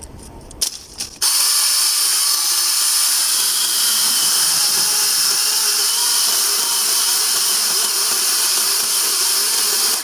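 Battery-powered chainsaw: a few clicks, then the motor and chain start about a second in and run at a steady full speed while cutting through a tree trunk.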